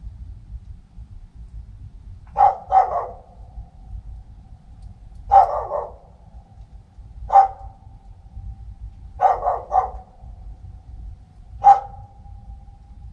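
Dog barking in short volleys of one to three barks, about eight in all, each leaving a ringing echo behind it. It is barking at a bear prowling around the hut in the dark.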